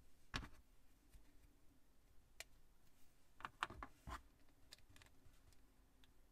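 Small hard-plastic Plus-Plus building pieces clicking as they are pressed together and handled: a sharp click about half a second in, another around two and a half seconds, then a quick run of clicks near the four-second mark, with a few fainter ones after.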